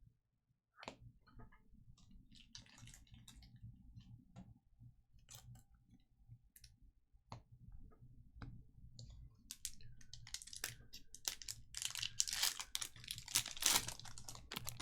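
Trading-card packs and cards being handled over a low steady hum. Scattered light clicks and rustles give way, in the last few seconds, to a louder, denser stretch of crinkling and rustling, like foil card wrappers being torn open.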